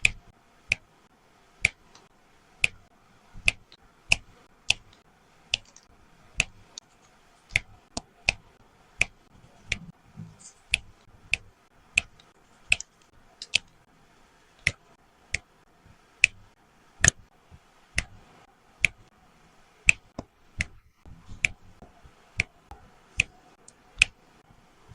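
Resin diamond-painting drills pressed one at a time onto the adhesive canvas with a drill pen, each giving a sharp pop, in a steady rhythm of a little more than one a second.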